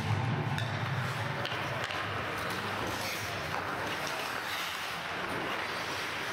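Ice hockey play in an arena: skates scraping and carving on the ice and a few sharp stick-on-puck clicks over a steady hall noise.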